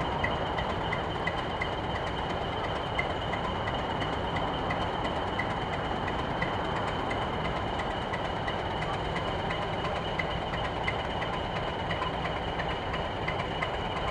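Class 27 diesel locomotive's Sulzer six-cylinder engine idling steadily while standing, with a steady high whine and a faint regular ticking about three times a second.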